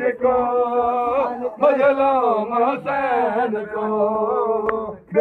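A man reciting a Punjabi noha, a Shia lament for Imam Hussain, in long drawn-out wavering phrases, the voice trailing off near the end.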